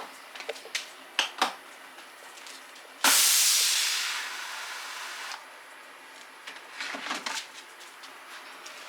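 A sudden hissing spurt of water and air from the spray gun of a Kärcher electric pressure washer, about three seconds in, fading out over about two seconds: air being purged from the line. A few clicks and knocks of the gun and hose being handled come before and after.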